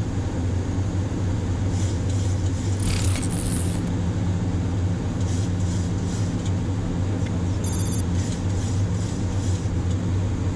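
Steady low rumble of a Boeing 737-800 flight deck in flight on approach: engine and airflow noise heard inside the cockpit. A brief hiss comes about three seconds in, and a short high buzzing chirp comes about eight seconds in.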